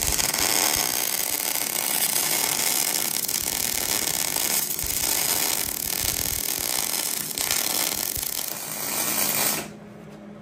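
MIG (wire-feed) welder arc crackling steadily as a bead is laid joining a steel axle tube to a preheated cast Dana 60 differential housing. It runs as one continuous bead and cuts off suddenly about nine and a half seconds in.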